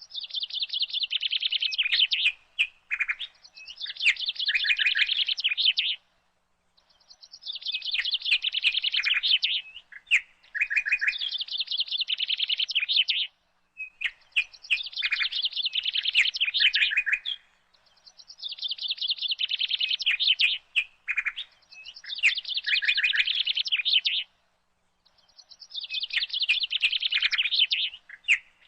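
Birds calling in repeated bursts of fast, high chattering notes, each burst about two seconds long. Every five to seven seconds the calling breaks off abruptly into a short silence before starting again.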